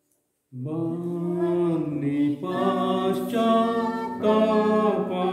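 A man singing a slow Kannada hymn, drawing each word out over long held notes, starting suddenly about half a second in after a moment of silence.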